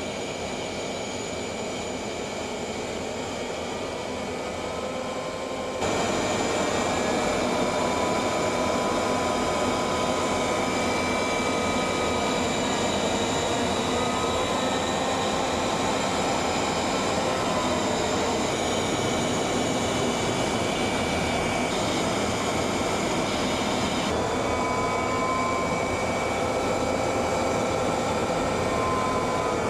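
Steady jet aircraft noise in flight, a dense rush with high whining tones, stepping up in loudness about six seconds in and shifting slightly in tone a few times later.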